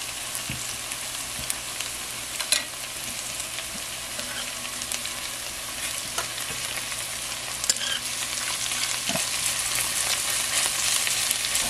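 Onion, garlic and whole spices sizzling in oil in a cast iron pot on low heat, with a metal slotted spoon stirring and scraping through them and a few sharp clicks.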